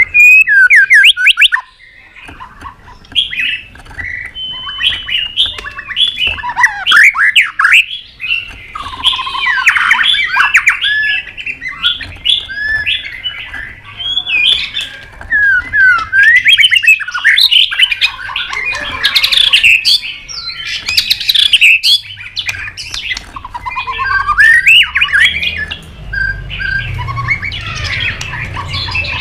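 White-rumped shama singing a loud, varied song of quick whistled phrases that rise and fall, in bursts broken by short pauses, with sharp clicking 'tak' notes mixed in. A low rumble runs under the song near the end.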